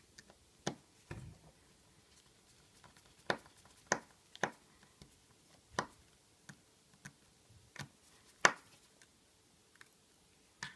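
Small screwdriver clicking against the tiny screws and metal shield plate over an iPhone 5's display connectors while the screws are undone: about ten sharp, irregularly spaced clicks.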